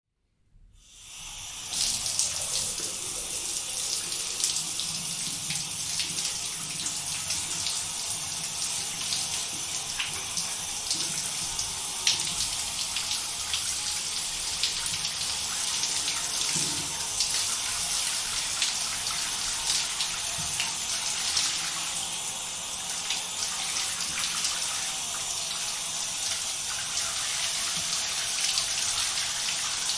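Shower running: a steady hiss of water spraying and splashing, fading in over the first two seconds, with small splashes and drips throughout.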